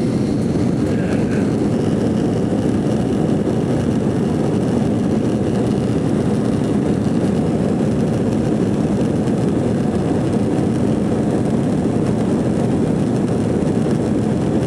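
Jet airliner's engines at takeoff thrust heard from inside the cabin during the takeoff roll: a loud, steady low rumble that holds level throughout.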